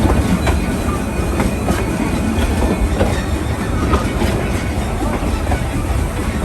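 Narrow-gauge railroad coach rolling along the track, its wheels giving a steady loud rumble with irregular clicks and knocks.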